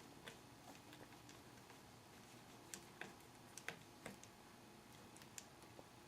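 Faint, scattered light clicks and ticks of a small screwdriver working the tiny mounting screws that fix a laptop screen to its metal flanges, with a cluster of sharper clicks around the middle.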